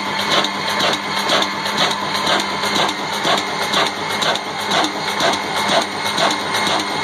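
Old Ruston Hornsby stationary diesel engine running steadily, with an even, repeating mechanical clatter from its valve gear and fuel injection pump.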